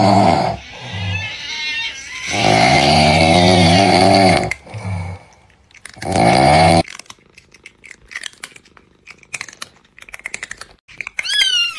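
Comic meme sound effect of loud snoring in long, drawn-out wavering breaths. From about seven seconds in it gives way to a run of quick, scattered crackly clicks, then a short rising cry near the end.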